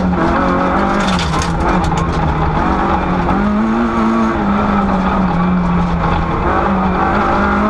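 Rally car engine heard from inside the cabin, pulling hard through the gears: the revs drop at a gearshift just after the start, climb again around three to four seconds in, settle, and rise once more near the end. A brief crackling clatter comes about a second in.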